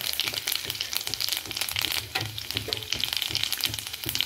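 Cumin seeds, mustard seeds and chopped garlic sizzling in hot oil in a kadhai, with a steady run of sharp crackles and pops as the tempering fries.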